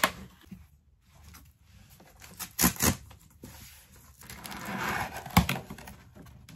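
Cardboard record mailer being handled and torn open: a few sharp cardboard knocks, then about a second of ripping as the tear strip is pulled along the box, ending in a sharp snap.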